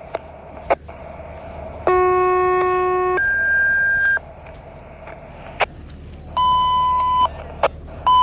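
Fire dispatch radio alert tones: a low steady tone followed straight away by a higher one, then two more steady beeps later on, each about a second long. Short sharp radio clicks fall between the tones over a steady hum.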